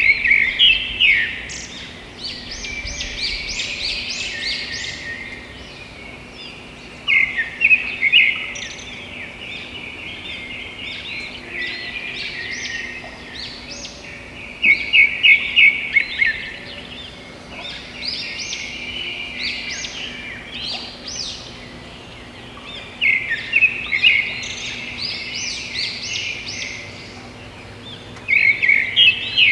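Bird-like chirping: bursts of rapid high twittering that come back roughly every seven seconds, with softer twittering in between and a faint steady hum beneath.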